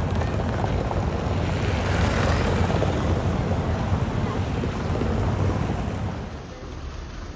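City street noise, a low rumble of traffic with wind buffeting the microphone, dropping quieter about six seconds in.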